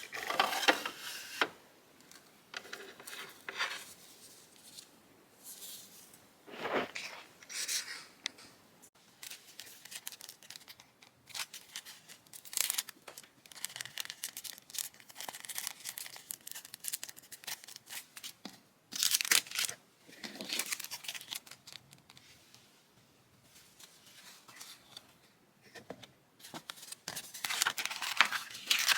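Packaging being handled by hand: irregular tearing and crinkling rustles that come and go in uneven bursts.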